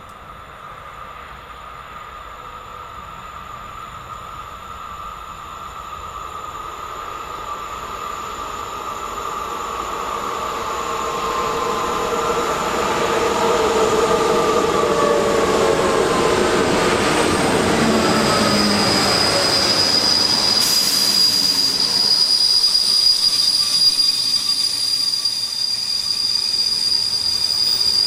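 Train approaching on the line and passing close, growing steadily louder for over ten seconds, with whining tones that fall in pitch as it nears. About three-quarters of the way through, a steady high-pitched squeal sets in and runs on under the rumble.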